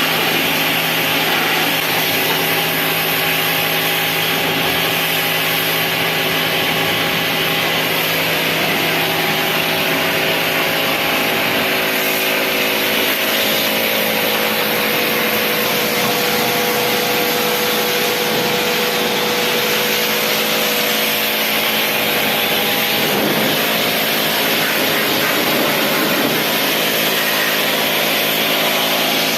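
Electric pressure washer running steadily, its motor humming under a broad hiss of the spray.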